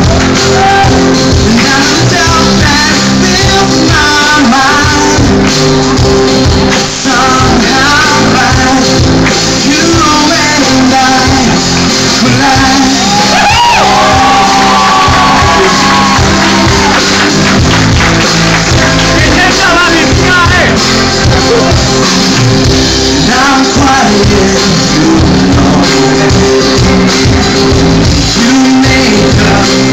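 A live rock band playing a song through a loud PA: electric guitars, bass and drums under a lead vocalist singing.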